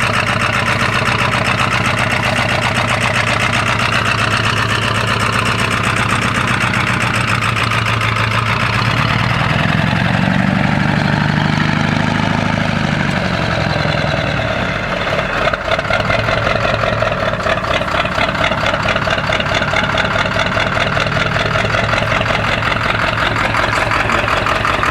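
Ford 7.3L Power Stroke V8 turbo diesel running steadily, with its pitch rising and falling for a few seconds near the middle and a brief dip just after; the owner puts the rough running down to bad injectors.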